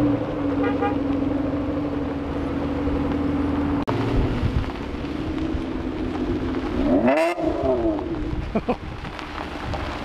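Sports cars pulling away slowly: a first-generation Acura NSX's engine running steadily for about four seconds, then a Nissan GT-R R35's twin-turbo V6 revving up and falling back once, about seven seconds in.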